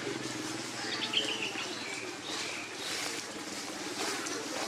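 Scattered short, high chirping calls over a steady outdoor background.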